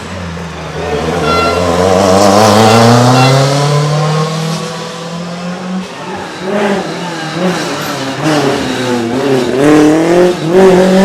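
Lancia Group B rally car engine accelerating hard, its pitch climbing steadily for about five seconds, then revving up and down in quick blips.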